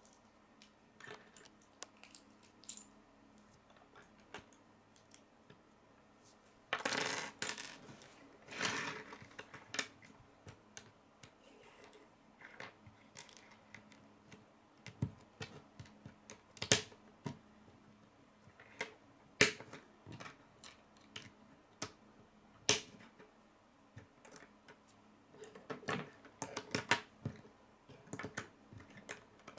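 Hard plastic K'nex rods and connectors clicking and snapping together and being set down on a wooden table: scattered sharp clicks, with two short clattering bursts about seven and nine seconds in.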